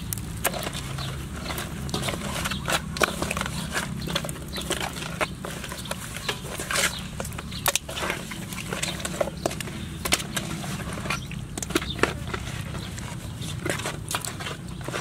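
Raw fish steaks being rubbed and turned by hand in a metal basin: irregular wet squelches and light knocks of fish against the metal, over a steady low background rumble.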